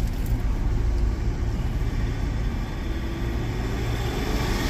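Car running in slow highway traffic, heard from inside the cabin: a steady low engine and road rumble.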